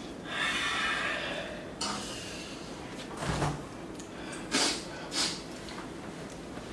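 Hissing breaths drawn through the teeth as the heat of extremely spicy noodles burns the mouth, then two short, sharp breaths about four and a half and five seconds in.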